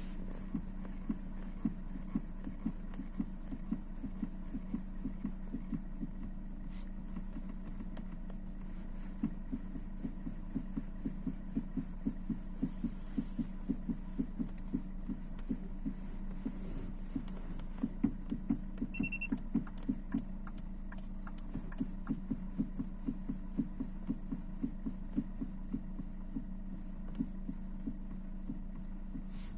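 Repeated short knocks, several a second with brief pauses, inside a fourth-generation Kia Rio, over the car's steady low hum. The owner takes it for a knocking steering rack, but asks whether the knock may instead come from the speakers.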